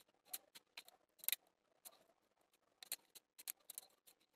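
Faint, irregular clicks and rustles of a tangled LED string light being pulled apart and spread out by hand, its small plastic bulb housings and thin wires tapping against each other and the tabletop.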